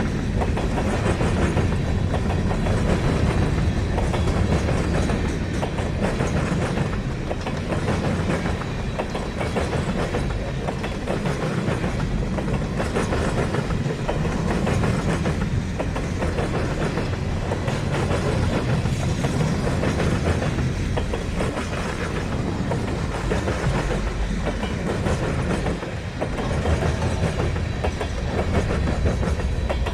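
A CN manifest freight train's cars rolling past, wheels on the rails giving a steady rumble that holds at an even level throughout.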